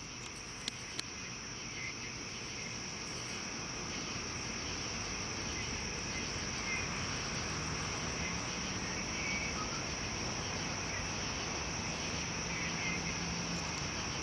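Steady chorus of crickets and other night insects, a continuous high-pitched trill with scattered fainter chirps, and a couple of small clicks about a second in.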